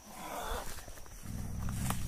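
Puma hissing, then a low growl setting in about a second in and carrying on. This is a warning sign of an irritated, agitated cat.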